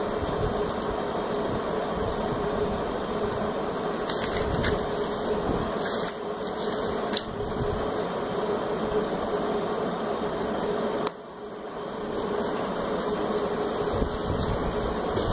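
Steady machine hum with hiss, broken by a few faint clicks; the noise drops suddenly about eleven seconds in and builds back over a second.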